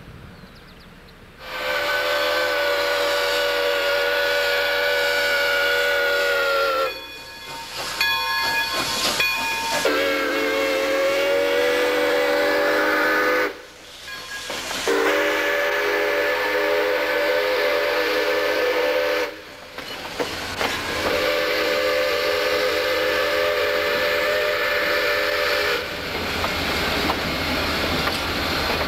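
Pere Marquette 1225, a 2-8-4 Berkshire steam locomotive, blowing its chime whistle in a series of long blasts of about four to five seconds each, with short gaps between them: the locomotive whistling for grade crossings. Steam hisses under the blasts.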